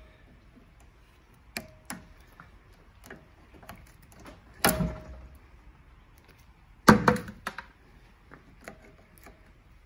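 Irregular clicks and clinks of steel needle-nose pliers gripping and working a hose clamp on a rubber fuel line. Two louder knocks come about four and a half and seven seconds in, the first ringing briefly.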